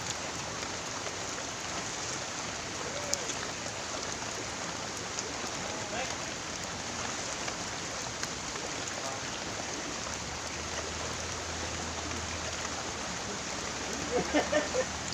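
Steady hiss of water, rain or flowing river, with faint voices near the end.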